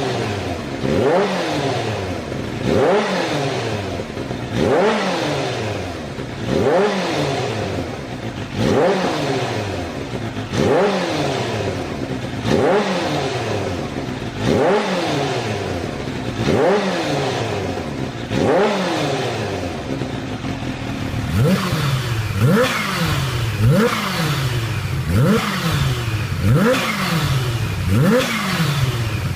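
Supercharged inline-four of a Kawasaki H2-series motorcycle revved over and over, the pitch rising quickly and falling back about every two seconds. About two-thirds in the sound changes and the revs come faster, a little under one a second and a half apart.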